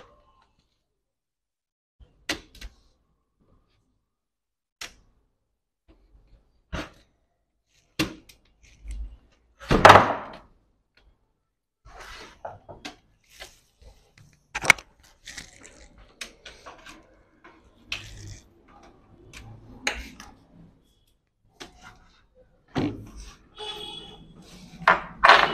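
Plastic case of a Lenovo laptop knocking and clicking as its top cover is prised off the bottom chassis by hand: single sharp clicks a second or two apart, a louder knock about ten seconds in, then denser rattling and scraping of the loosened plastic parts.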